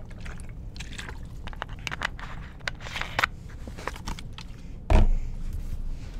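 Scattered rustling and light clicks of handling noise, with one loud, low thump about five seconds in.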